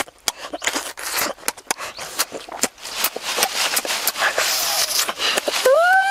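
Wet mouth sounds of eating cooked pig intestine: a rapid run of sharp lip-smacks, slurps and chewing clicks. Near the end a high, drawn-out vocal cry begins, rising and then falling in pitch.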